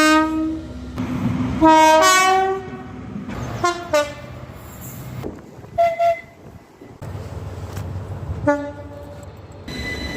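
A series of British train horns sounding in short blasts, about five, one of them a two-note low-then-high call, with the low running rumble of trains underneath.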